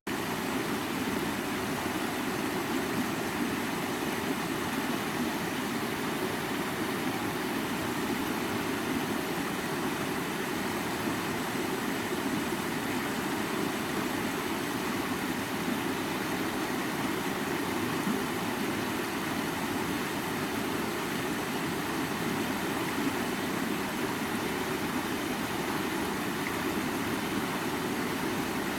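Creek water running, a steady, even rush with no change in level.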